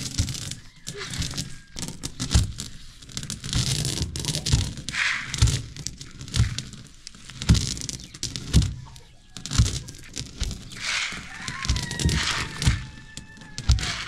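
Heavy stone hand mill grinding wheat: the upper stone scraping and crunching the grain against the lower stone, with a low knock about once a second as it is pushed round.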